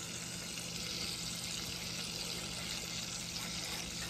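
Red chile sauce sizzling steadily as it drips through a mesh strainer into hot oil in a pot on a gas burner, the sauce frying. A low steady hum runs underneath.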